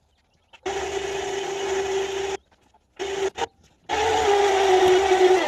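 Electric winch running with a steady whine, hauling a lawn tractor up ramps onto a tilted truck bed by its cable. It runs for about two seconds, stops, gives two short bursts, then runs again, dropping a little in pitch near the end.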